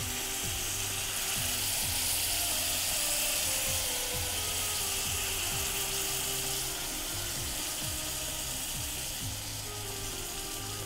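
Hot sizzler plate sizzling as rabdi is poured onto the buttered plate and the pancakes on it; the sizzle is loudest a couple of seconds in and eases off after. Background music with a steady beat plays underneath.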